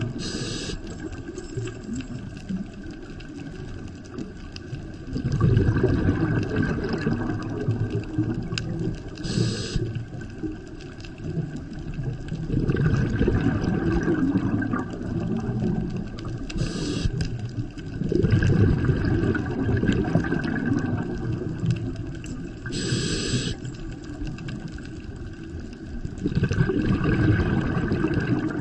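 Scuba diver breathing through a regulator, heard underwater: a short hiss of inhalation, then a few seconds of bubbling as the exhaled air vents. The cycle repeats about every six to eight seconds.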